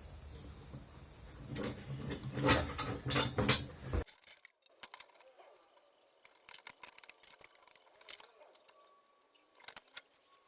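Small steel parts clinking and knocking together as they are handled, in quick sharp taps. About four seconds in the sound cuts off abruptly to near silence, leaving only a few faint clicks.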